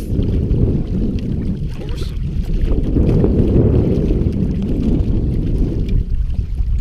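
Wind buffeting the camera microphone: a loud, steady low rumble, with a few faint clicks over it.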